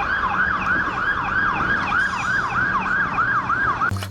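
Electronic siren sounding in quick rising whoops, about three a second, then cutting off suddenly near the end.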